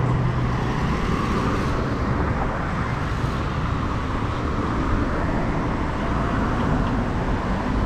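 Road traffic on a busy street: a steady rush of passing cars' tyres and engines, swelling and easing as vehicles go by. A nearby engine's low hum fades out about a second in.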